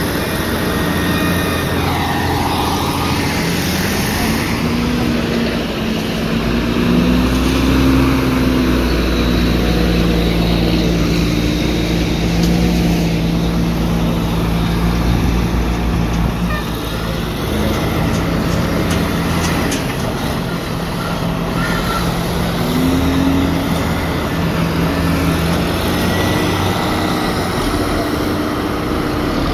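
Cat 980C wheel loader's diesel engine working under load while lifting and dumping a bucket. The revs climb a couple of seconds in, hold high for much of the time, drop back, then rise briefly again near the end.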